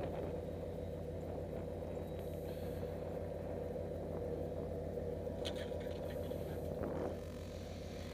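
Steady low rumble of wind on the microphone, with a few brief handling knocks about five and a half seconds in.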